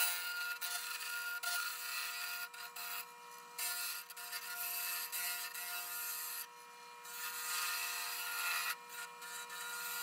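Wood lathe running with a skew chisel cutting a hard black locust pen blank, a steady motor hum under a hissing, scraping cut that comes and goes as the tool bites in and lifts off, throwing small shavings.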